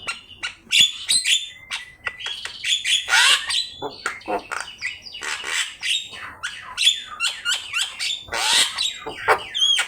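Javan myna singing a fast, unbroken run of harsh squawks, clicks and short whistles, ending in a few rising whistled notes. This is the bird in full song, its phrases packed with varied calls.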